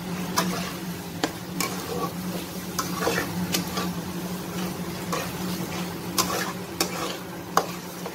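A metal spatula stirring thick vegetable purée and masala in a metal kadhai, scraping and knocking against the pan at irregular intervals, over a soft sizzle of the mix frying in oil. A steady low hum runs underneath.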